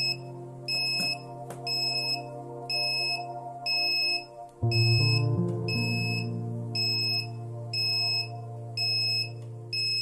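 Electronic alarm buzzer beeping in a steady on-off pattern, one short high beep about every three-quarters of a second: the chiller controller's high-temperature alarm is active. Background music runs underneath.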